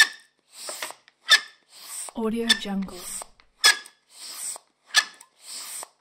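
Squeaky hand air pump being worked in steady strokes, a little more than one a second: each stroke a short puff of air hiss and a sharp squeak. About two seconds in, one longer pitched squeal.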